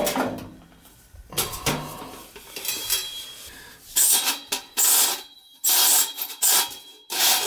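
Metal furnace parts being handled: a string of short scraping and clattering noises, sparse at first and louder and more frequent from about halfway through.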